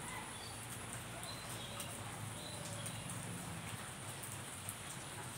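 Outdoor ambience of scattered soft ticks over a steady high hiss, with a few faint short chirps.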